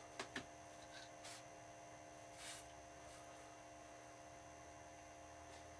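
Near silence: room tone with a steady mains hum, two faint clicks at the start and a brief faint rustle a couple of seconds in, small handling sounds.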